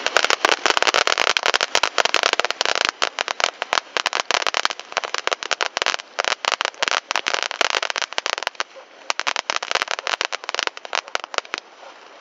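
Ground fountain firework spraying sparks with dense, rapid crackling, which thins out in the last few seconds and stops shortly before the end.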